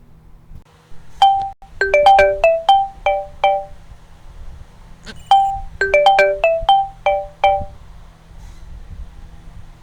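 Galaxy S7 stock ringtone playing from a phone: a short melody of quick, bright notes, sounded about a second in and repeated about four seconds later, over a faint low hum.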